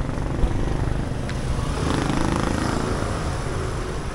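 Street traffic with a motorcycle engine running over a steady low rumble.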